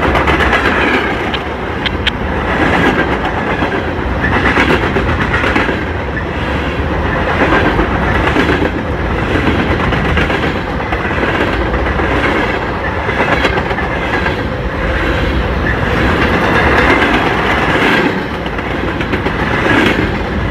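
Freight train of covered grain hopper cars rolling past close by: steady rumble and clickety-clack of steel wheels over the rail joints, swelling and easing every couple of seconds as the trucks go by.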